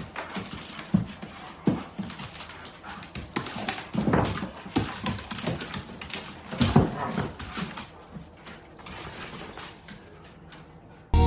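Two wolves play-fighting on a hardwood floor: scuffling, with claws and paws clicking and knocking on the wood and a few short growls. Loud electronic music cuts in at the very end.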